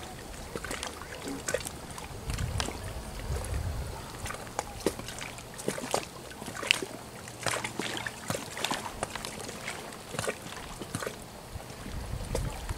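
Small waves lapping and splashing irregularly at a lake's edge, with low gusts of wind on the microphone about two seconds in and again near the end.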